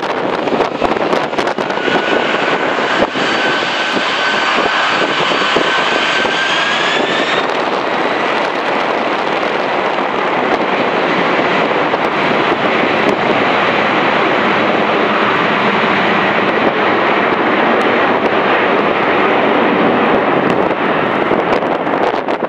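Boeing 767-300ER freighter's twin turbofan engines at takeoff thrust during the takeoff roll: a steady jet roar with a whine that rises slightly in pitch over the first several seconds, then settles into a steady high tone.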